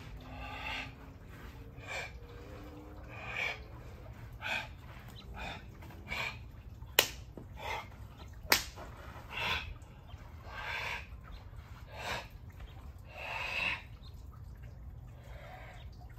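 Forceful breath exhalations from a kung fu practitioner performing a tiger form, short hissing bursts roughly every second or so in time with the movements. Two sharp smacks about seven and eight and a half seconds in are the loudest sounds.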